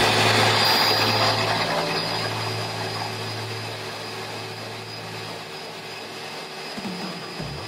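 Ninja blender motor running on its crush setting, chopping spinach and greens in water. The sound gradually fades, and the motor hum stops about five and a half seconds in.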